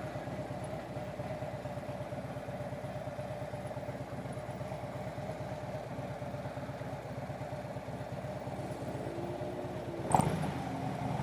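Harley-Davidson V-twin motorcycle engine running steadily at low revs with an even pulsing beat. Near the end a sharp click, and then the engine gets louder.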